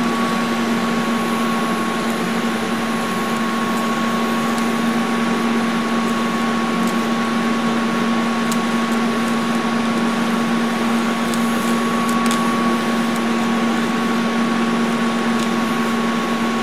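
Arc of a Lincoln TIG200 Squarewave TIG welder burning steadily while filler is added to build up metal: a steady low hum with a fainter higher tone over an even hiss, with a few faint ticks.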